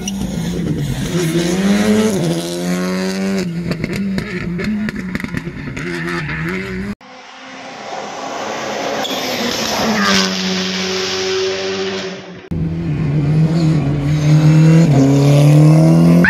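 Rally car engines at full throttle on a tarmac stage, revving up and dropping repeatedly with each gear change as the cars accelerate past. The sound comes as three separate clips with abrupt cuts: one about halfway through, where it briefly goes quiet before an engine approaches and grows louder, and another near three-quarters of the way through.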